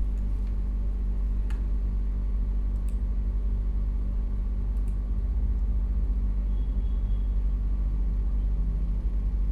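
Steady low rumble with a faint hum over it, unchanging throughout, broken only by a few faint clicks.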